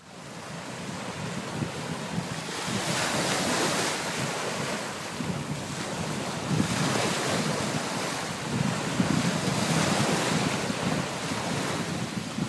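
Small waves washing onto the shore, with wind gusting across the microphone.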